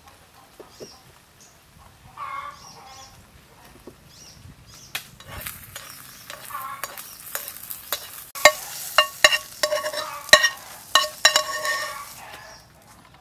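Thin beaten-egg omelette sizzling in a frying pan while a metal spoon scrapes and clinks against the pan to loosen and roll it. The clinks ring, starting about five seconds in and coming thick and loud in the second half.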